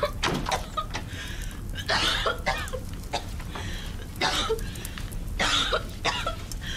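A person coughing and choking in thick smoke, in four short bouts spaced a second or two apart, over a steady low rumble.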